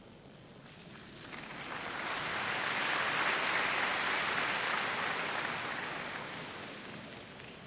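Crowd applauding after a point, swelling about a second in, peaking a couple of seconds later and dying away near the end.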